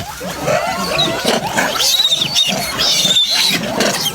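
Several monkeys calling over one another, many short overlapping calls, with high-pitched screeches about two to three seconds in.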